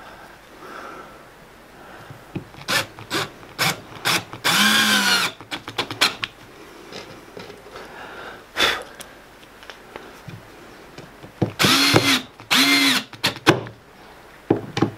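Handheld power drill run in three short bursts, each spinning up and winding back down in pitch, drilling small pilot holes and driving small screws into plywood beside T-nuts to lock them in place. Clicks and knocks of handling come between the bursts.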